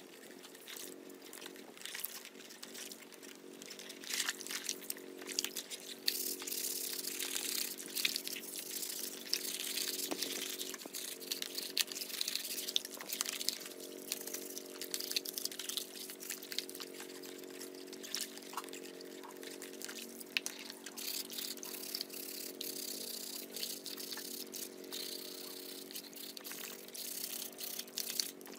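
Soapy water sloshing and splashing in a plastic basin as a plastic children's bicycle wheel and parts are washed by hand and scrubbed with a sponge, with many small clicks and knocks. A steady low hum runs underneath.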